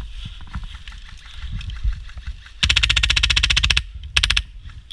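Airsoft gun firing on full auto: a rapid, evenly spaced rattle of shots lasting about a second, starting a little over two and a half seconds in, followed by a second short burst about half a second later.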